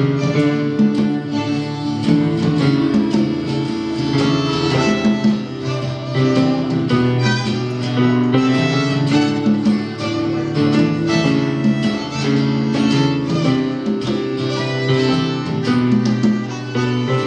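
Live band playing an instrumental break between sung lines of a country-style love song, with guitar prominent and a melody line over it.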